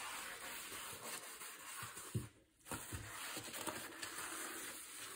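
Faint scrubbing of a blue Scotch-Brite pad rubbed over a soapy quartz backsplash, with a light knock and a brief gap about halfway through.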